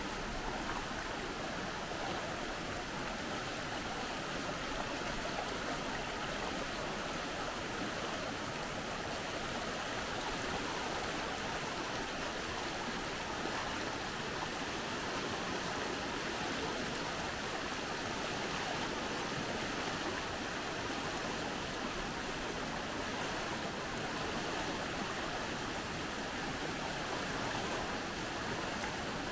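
Shallow, fast-flowing creek, swollen by flood, rushing steadily over a stony bed.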